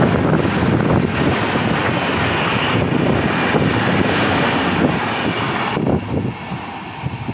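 Kolkata–Jammu Tawi Express coaches running through close by at speed: a loud, steady rumble of wheels on rail with wind buffeting the microphone. The rumble drops off suddenly about six seconds in as the last coach passes, then fades as the train moves away.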